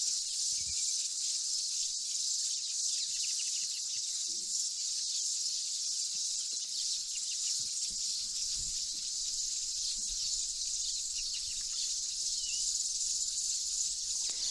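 A breeding colony of red-billed queleas chattering: a dense, steady high-pitched din of thousands of tiny overlapping chirps.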